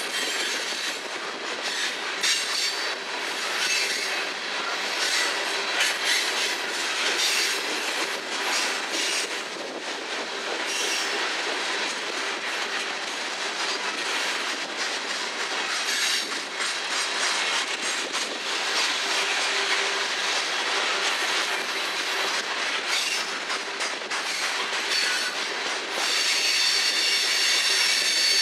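Coal train's freight cars rolling past on steel rails: a steady rush of wheels with repeated clicks as the wheels cross rail joints. Near the end a high-pitched wheel squeal sets in and the sound grows louder.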